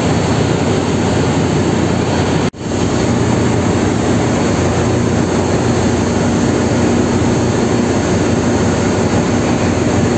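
Loud, steady machinery drone of a ship's engine room, with a few steady hums underneath. It cuts out for a split second about two and a half seconds in.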